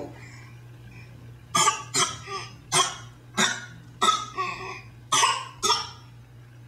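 Six-month-old baby giving a run of about seven short fake coughs, starting about a second and a half in.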